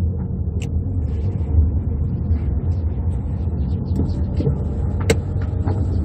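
Car running at low speed, heard from inside the cabin: a steady low rumble of engine and tyres, with a couple of short sharp clicks.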